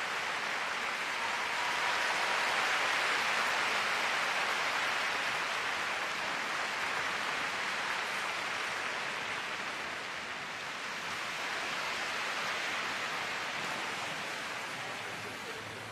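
Large arena audience applauding. The applause swells over the first few seconds, then slowly dies down.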